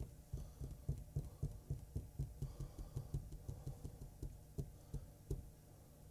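Faint, rapid low ticking, about three to four ticks a second, dying away near the end, from a Samsung UE50BU8000 LED TV power-recycling: its backlights have gone off as it keeps failing to start.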